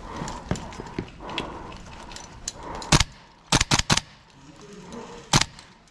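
GHK Sig airsoft rifle firing: a single shot about three seconds in, a quick string of four half a second later, and another single shot near the end, given as covering fire.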